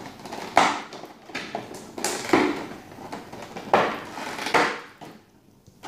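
Clear plastic blister packaging crackling as it is pried apart and pulled open by hand, in about five separate crinkly bursts, then going quiet near the end.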